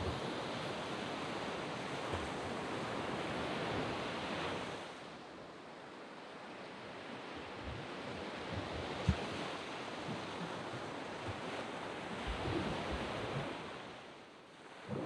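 Sea waves breaking and washing up a sand beach. A loud wash fills the first few seconds and eases off about five seconds in, and another wave swells up near the end.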